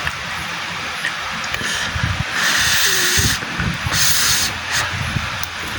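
Close-miked eating sounds: chewing of spicy rice vermicelli, with two loud hissing draws of air through the mouth around the middle, the second shorter.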